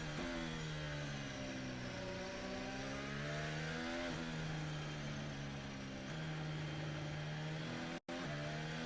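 Red Bull RB16B Formula 1 car's Honda 1.6-litre turbo V6, heard onboard at low revs, its pitch stepping up and down a few times with gear changes and throttle. The sound drops out for an instant about eight seconds in.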